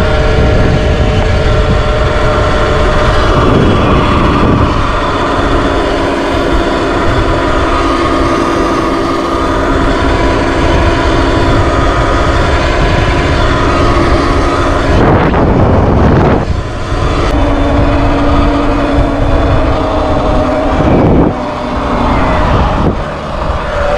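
Sur Ron X electric dirt bike under way: heavy wind buffeting on the microphone over a steady whine from the electric motor and drivetrain. The whine shifts in pitch with speed and rises near the end.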